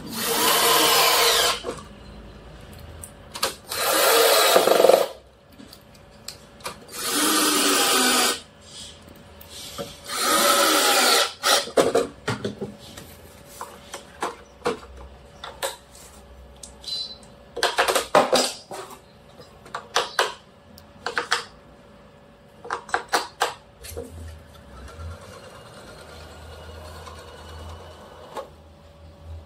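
Cordless drill driving screws through the plastic door frame into plywood, in four runs of one to two seconds each whose pitch sags as the screw seats. After these come scattered clicks and knocks of hands handling the plastic door housing.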